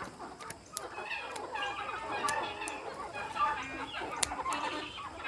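A flock of chickens clucking and squawking, many short calls overlapping, with scattered sharp clicks.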